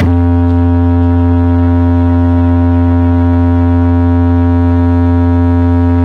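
Loud, steady, sustained low bass tone with a stack of overtones, played through a towering stack of DJ speaker boxes during a sound test. It cuts in suddenly and holds at one pitch without changing.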